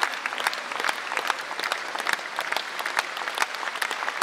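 Audience applauding in a concert hall: many hands clapping steadily, with a few sharp close claps standing out.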